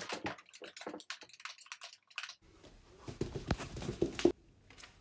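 Handling noise: a quick irregular run of clicks and taps, then rustling with soft thumps of bare feet stepping on a wooden floor, stopping abruptly a little after four seconds in.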